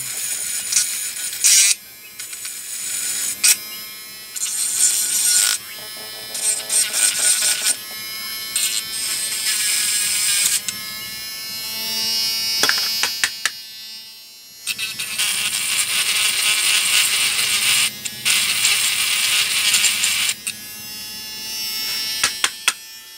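ORIA mini rotary tool whining at high speed as its small bit grinds on metal battery contacts, running in several spells with short stops between.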